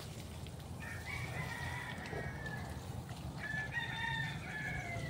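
A rooster crowing twice, each crow drawn out for about a second and a half, the second one starting about three and a half seconds in.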